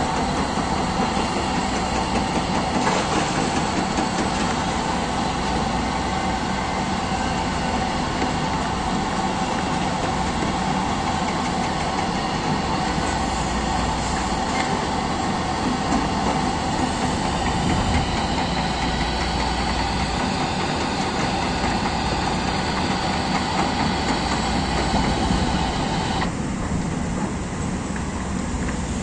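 Steady mechanical drone from construction-site machinery, with a held mid-pitched tone running through it; the higher part of the sound thins out near the end.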